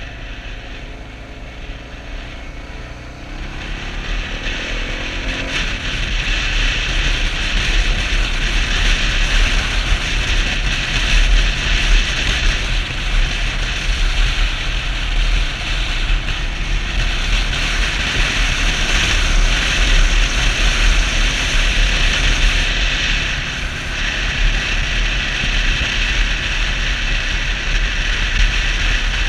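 Wind rushing over the microphone of a moving Suzuki DR650, with the bike's single-cylinder engine running underneath. The rush grows louder about three to four seconds in as the bike picks up speed, then stays steady.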